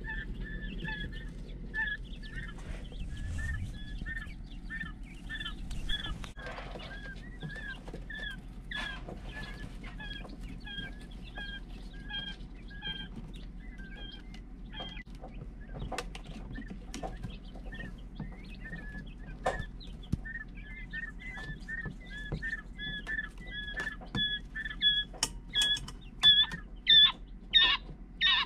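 Young tuxedo Coturnix quail chicks peeping, many short high chirps repeating with little pause between them, getting louder and more frequent near the end. A steady low hum runs underneath.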